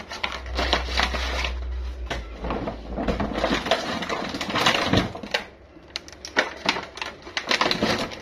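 Plastic shopping bags and packaging rustling and crinkling as groceries are pulled out and handled, a dense run of crackles.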